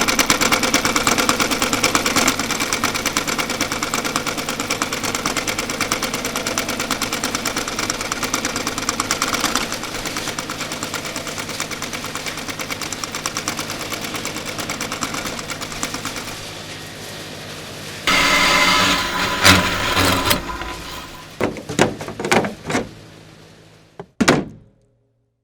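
Fast, even mechanical rattling like a machine running at speed, dropping somewhat in level partway through. About two-thirds of the way in it gives way to louder, irregular clatter and a few separate knocks, which die away and stop shortly before the end.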